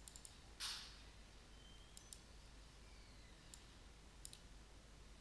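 Faint computer mouse clicks over near silence: a few quick ones at the start, a pair about two seconds in, and single clicks later on. There is a short hiss just under a second in.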